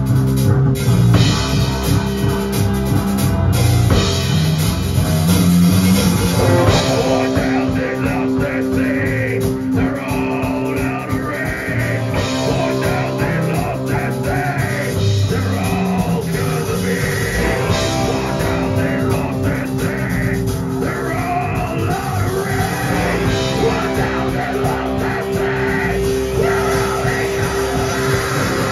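A live heavy rock band playing loud, with distorted electric guitars, bass guitar and drum kit. A vocalist sings into a handheld microphone, with the vocals coming in about eight seconds in.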